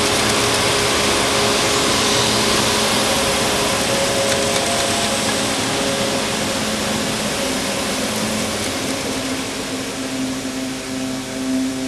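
A steady rushing, machine-like noise over soft sustained music tones; the noise eases near the end as the music comes forward.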